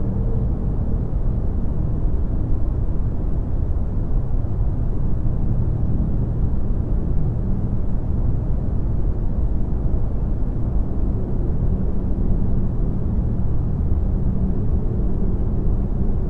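Steady, deep rumbling noise with no distinct notes or rhythm: a background rumble bed under subliminal audio. A faint held tone fades out about half a second in.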